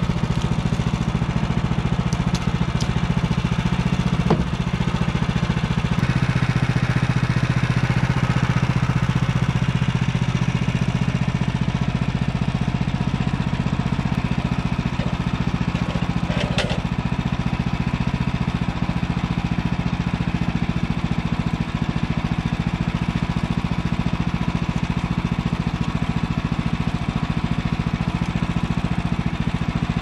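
Small gasoline engine of a portable bandsaw sawmill (Woodland Mills HM130max) idling steadily, with a brief metallic knock about halfway through.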